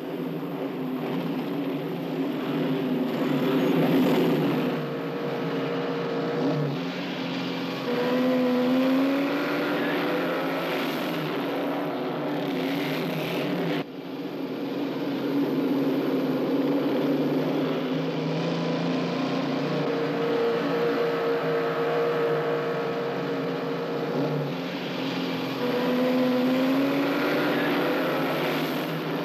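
A pack of motorcycles riding at night, several engines revving and passing, their pitches rising and falling over one another. The sound breaks off abruptly about fourteen seconds in and picks straight up again, and it has the thin, bass-less quality of an old film soundtrack.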